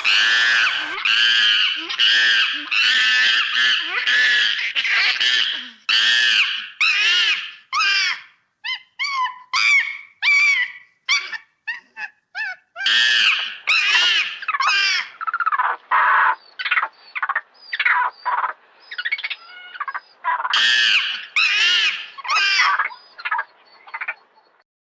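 Monkey giving a long run of repeated high-pitched calls, each rising and falling in pitch, one after another with short gaps, more broken up in the middle; they stop shortly before the end.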